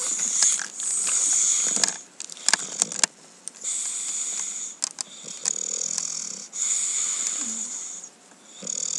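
English bulldog snoring in its sleep: a run of noisy, rasping breaths, each lasting about a second, coming roughly every second and a half. A few sharp clicks fall between them about two seconds in.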